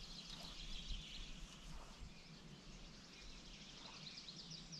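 Faint outdoor ambience, a steady high hiss, with a bird calling in a quick run of short falling notes near the end.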